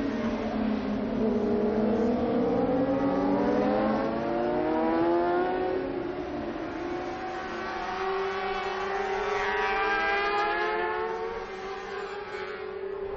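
Several 600cc racing motorcycles at high revs, their engine notes rising in pitch as they accelerate through the gears, twice over.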